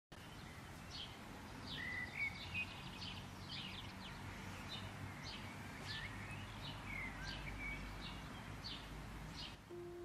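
Birds chirping: a short high call repeated steadily, with a few lower warbling notes, over a faint steady outdoor hiss.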